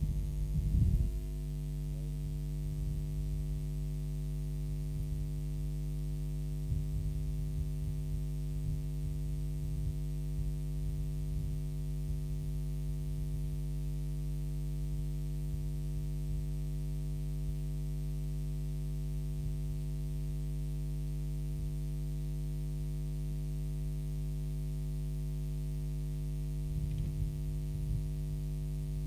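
Steady electrical mains hum, a stack of even tones, with faint low rumbles and a slight swell near the end.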